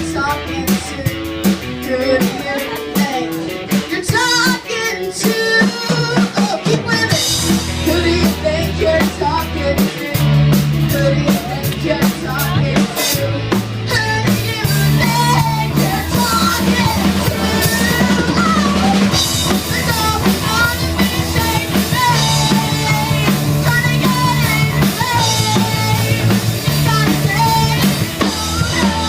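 Live rock band playing, the drum kit prominent over a moving bass line, with a wavering melodic line in the upper range from about halfway through.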